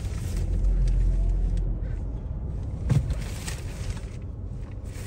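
Low rumble of a vehicle driving on a dirt road, heard from inside the cabin, with a single sharp knock about three seconds in.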